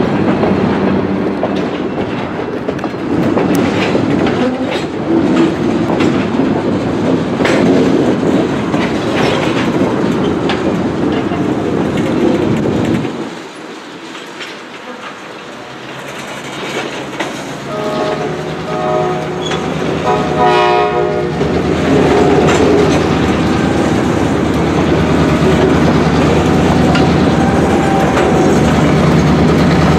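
A freight train of tank cars rolls by with steady wheel clatter on the rails. The sound drops away suddenly for a few seconds, then a locomotive horn sounds in a series of short blasts before the steady rolling of the cars returns.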